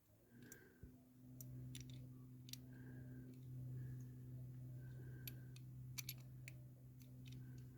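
Faint, scattered clicks and taps as small die-cast toy car parts are handled while the base is fitted, over a steady low hum.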